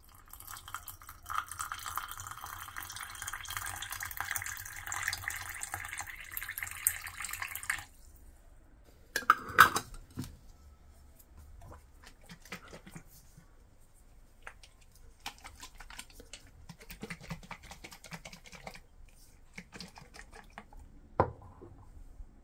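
Water poured in a steady stream into a glass mason jar of shredded daikon and carrot, filling it for about eight seconds and then stopping suddenly. A couple of loud clunks follow as the jar is lidded and handled, then faint clicks while the jar is shaken to mix, and a sharp knock near the end as it is set down on the counter.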